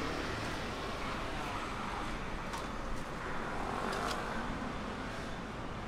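Steady street traffic noise from passing cars and scooters, with a few light clicks.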